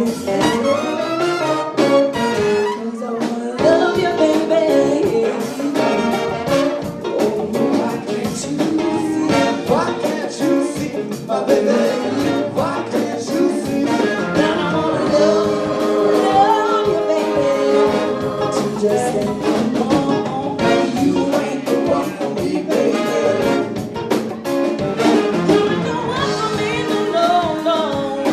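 Live funk band playing: a woman sings lead over electric guitar, drums and a horn section of saxophone and trombone, with the horns holding long notes through the middle.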